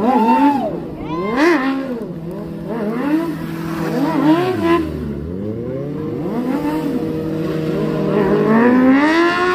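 Sport motorcycle engines revving up and down again and again during stunt riding, with a steady held engine note underneath for several seconds in the middle and a long climb in revs near the end.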